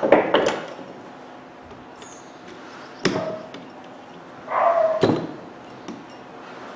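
A dog in the background gives a couple of short barks, over sharp clicks and knocks from small metal and plastic parts being handled on a bench.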